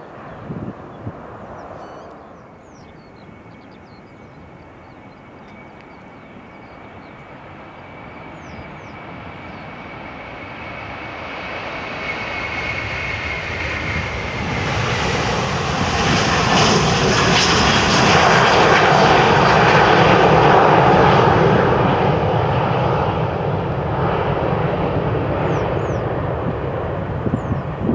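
Airbus A330-300 twin-engine jet taking off at full power: the engine noise builds over about ten seconds, with a high whine that falls in pitch as it passes. It peaks when the aircraft is closest, then slowly fades.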